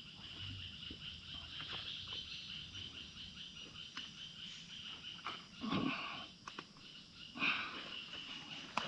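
Insects chirring steadily in high-pitched woodland. Two louder short noises come about six and seven and a half seconds in.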